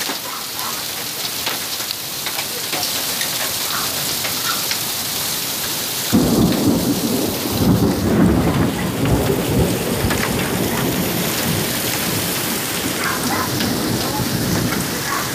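Heavy rain and hail pelting down in a severe thunderstorm, with scattered small ticks of stones striking. About six seconds in, a loud rumble of thunder breaks in and rolls on for several seconds before easing.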